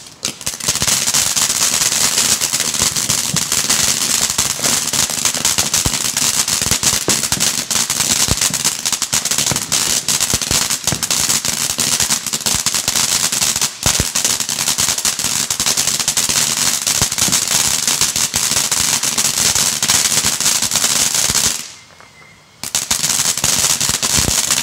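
Ground fountain firework spraying sparks: a steady loud hiss packed with rapid crackling pops. It drops out for about a second near the end, then resumes.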